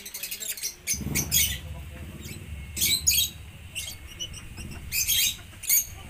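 Lovebirds chirping in short, sharp, high-pitched bursts, about half a dozen clusters of calls, over a low steady hum that starts about a second in.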